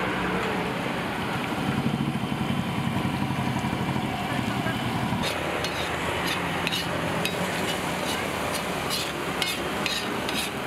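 Egg mixture sizzling on a large flat iron tawa while a metal spatula stirs and scrapes it, over a low hum in the first half. From about five seconds in, the spatula strikes the griddle in sharp clicks, about two a second, as the mixture is chopped.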